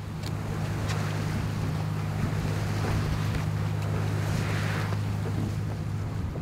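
Sailboat under way: a steady low engine hum, with wind on the microphone and water washing along the hull.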